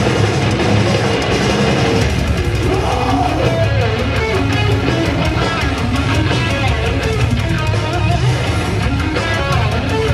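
Heavy metal band playing live, with electric guitars over drums, loud and without a break.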